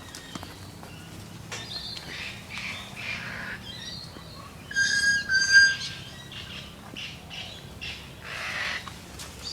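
Several birds chirping and calling, with two loud, short, clear-pitched calls close together about five seconds in.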